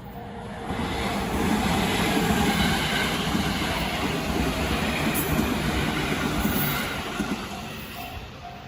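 A train passing close by on the rails: its wheel and running noise swells over about a second, holds for several seconds, then fades away near the end.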